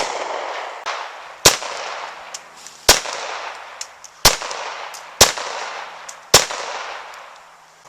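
Five gunshots fired one at a time, about a second to a second and a half apart, each followed by a long echo that dies away.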